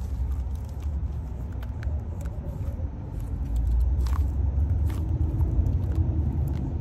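Steady low road rumble inside a moving car, with a few faint clicks.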